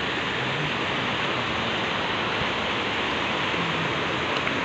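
Muddy mountain stream in spate after heavy rain, rushing steadily: a continuous, even roar of fast-flowing water.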